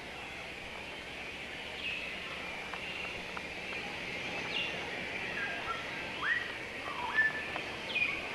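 Birds calling with short, clear whistled notes, several sliding down in pitch and one sliding up and holding, scattered through and loudest in the last few seconds, over a steady high hiss of natural ambience.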